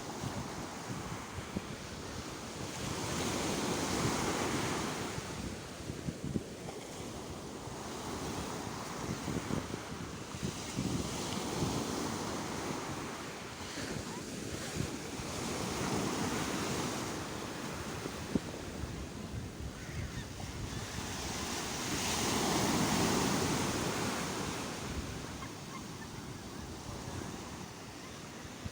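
Sea waves washing onto the shore in slow surges several seconds apart, each swelling up and falling away, with the largest about two-thirds of the way through.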